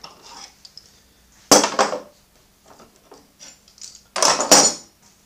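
Steel bar clamps clattering as they are taken off and put down on the workbench: two short metallic clanks, one about a second and a half in and a longer rattle near the end.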